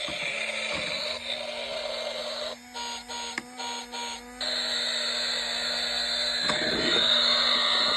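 Electronic synthetic sound effects: a steady low hum under a bright hiss, broken about two and a half seconds in by a couple of seconds of choppy beeping tones.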